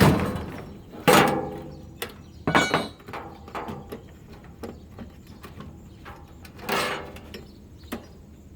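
Metal parts of an air purifier knocking and clanking as they are handled, each knock with a short ring. There are knocks at the start, about a second in, and twice near two and a half seconds, then a longer clatter near seven seconds.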